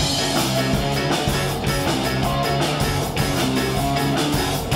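Rock music with electric guitar and a steady beat, an instrumental passage between sung verses.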